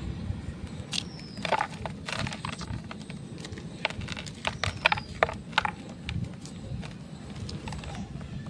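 A block of dyed gym chalk being crushed, giving irregular dry crunches and crackles, several clustered close together and some louder single cracks.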